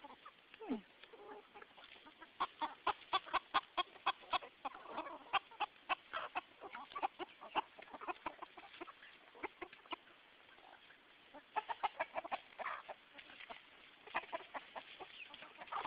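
A flock of chickens clucking as they feed on the ground, in quick runs of short notes, with one falling call just under a second in.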